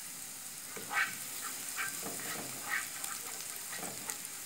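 Minced garlic sizzling in olive oil in a pan, with a spatula stirring it in several short scraping strokes.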